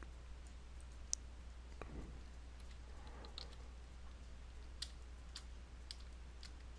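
Faint, scattered clicks of a computer mouse and keyboard, a few seconds apart, over a steady low hum.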